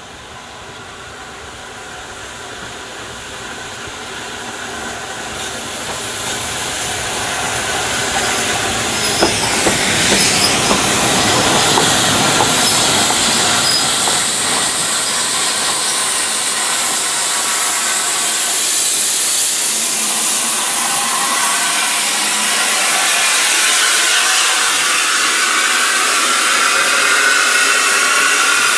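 BR Standard Class 8 steam locomotive 71000 Duke of Gloucester drawing slowly in with a coach, getting steadily louder as it approaches, with a brief wheel or brake squeal about ten seconds in. In the second half a steady hiss of steam dominates as the engine passes close by.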